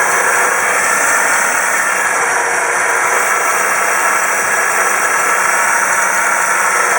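1958 Chevrolet Bel Air engine running steadily, heard as a loud, even, hissy noise that the owner takes for an exhaust leak.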